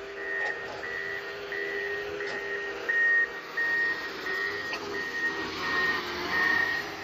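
Motor grader's reversing alarm beeping steadily, about one and a half beeps a second, over the diesel engine running, with a few brief knocks.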